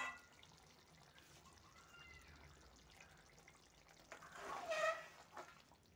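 Thick dry fish and potato curry simmering faintly in a kadai, then a wooden spatula stirring through it about four seconds in.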